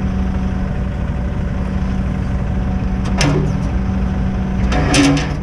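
Heavy truck diesel engine idling steadily, with two brief noisy bursts over it, one about three seconds in and one near the end.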